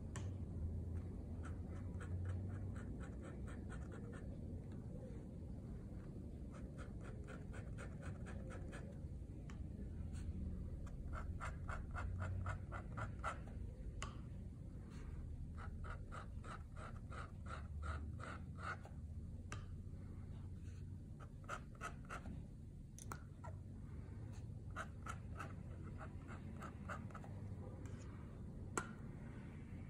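Steel dip-pen nib scratching across paper in runs of quick short hatching strokes, with brief pauses between the runs.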